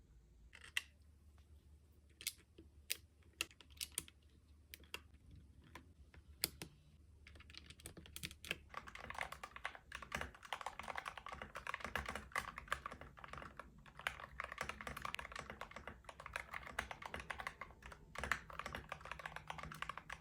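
Mechanical keyboard fitted with handmade keycaps: a few separate key clicks spaced about half a second to a second apart, then fast, continuous typing from about seven seconds in.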